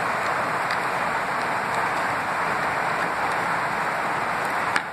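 A steady hiss runs throughout. Over it come a few faint ticks, and one sharper click near the end, as a small precision screwdriver works a tiny screw out of a camcorder's casing.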